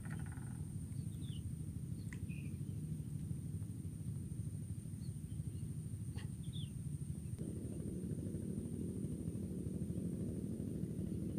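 Outdoor ambience over open water: a steady low rumble that grows fuller about seven seconds in, a steady high-pitched insect drone, and a few short bird chirps, with a couple of sharp clicks.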